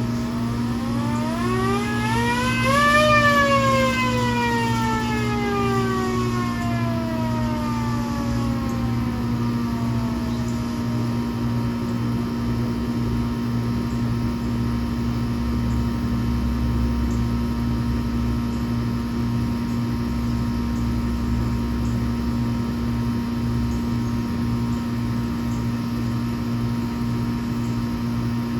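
Hand-cranked siren winding up: its wail rises for a couple of seconds to a peak about three seconds in, then winds down slowly over about nine seconds as the rotor coasts. A steady low hum runs underneath throughout.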